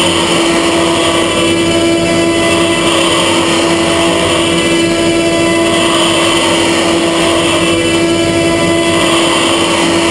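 Haas CNC mill counterboring aluminium with a 25 mm end mill: a steady spindle and cutting tone over the hiss of flood coolant spraying on the part.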